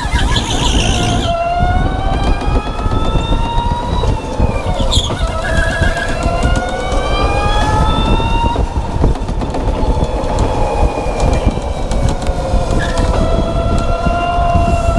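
Electric go-kart's motor whining as it laps, the pitch rising and falling with speed over a constant low rumble and rattle of the kart on the track.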